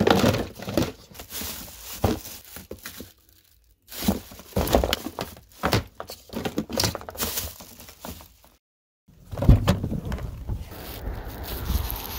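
Plastic spray bottles knocking and crinkling against each other and the sides of a plastic storage tub as a hand rummages through them, in irregular clatters with a short pause partway. After a sudden break near the end, a steady low rumbling noise takes over.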